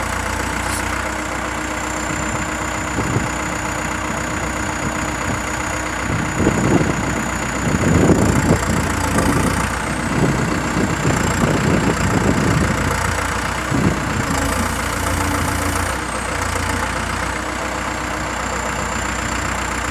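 Diesel engine of a 2008 Terex TX760B backhoe running steadily, with a thin high whine over it. For several seconds in the middle the sound grows louder and rougher, with irregular rumbling and a few knocks.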